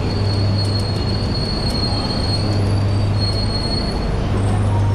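An E3-series Shinkansen train, the Genbi Shinkansen, arriving at a platform and slowing to a stop, with a high steady squeal from its wheels and brakes that cuts off about four seconds in. A steady low hum runs underneath.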